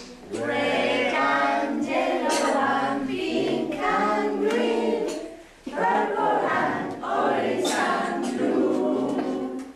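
A group of voices singing a song together, in phrases, with a short break about five and a half seconds in.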